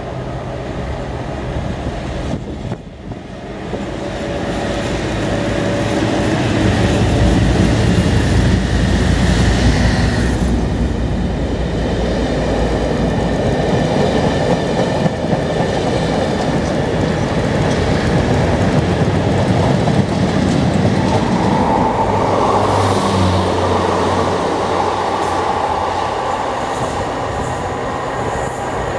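A Colas class 56 diesel locomotive with a Ruston 16-cylinder engine approaches and passes close by with a heavy low rumble that peaks a few seconds in. A long rake of test coaches follows, wheels clicking over rail joints with some squeal, and a second engine passes near the end.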